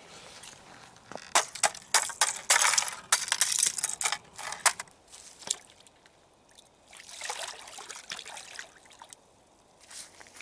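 Small forest brook trickling and splashing over rocks. It is loudest for a few seconds starting about a second in, quieter after that, and swells again briefly around seven seconds.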